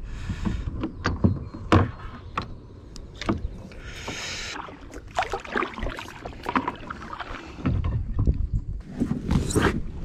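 Paddling an 11½-foot Lifetime plastic kayak: irregular knocks and clunks on the hull, with two brief water swishes of the paddle, one near the start and one about four seconds in.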